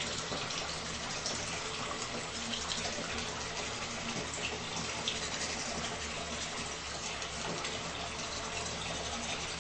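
Tap water running steadily into a bathroom sink.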